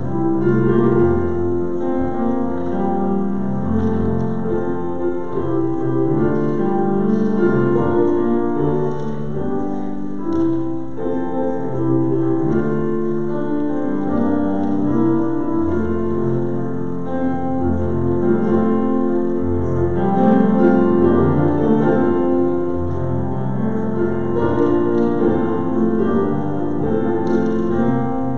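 Keyboard instrument playing a slow piece of held chords, with the notes changing about once a second.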